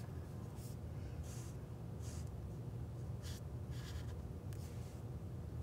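Black felt-tip marker drawn across paper in about six short, scratchy strokes as an outline is traced.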